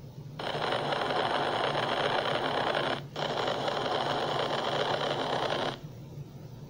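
A loud, even rushing noise, like static, lasting about five seconds with a brief break about three seconds in, over a steady low hum.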